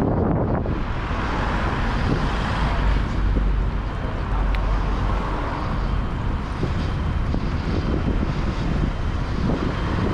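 Steady wind rush and low rumble on the microphone of a camera moving along a street, with traffic and road noise.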